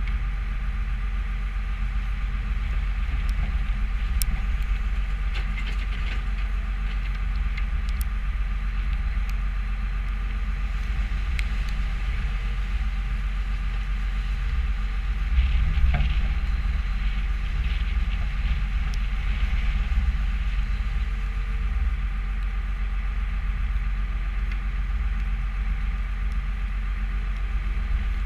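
New Holland skid steer's diesel engine running steadily under load, with light rattles and clanks from the machine and a louder clunk about sixteen seconds in.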